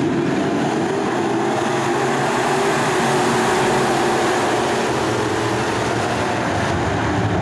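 Several IMCA Sport Mod dirt-track race cars' engines running together in a steady, loud mass of engine noise.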